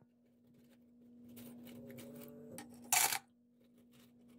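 Loose steel nails, staples and screws clinking and rattling as a hand rummages through them in a plastic tub, with one louder clatter about three seconds in.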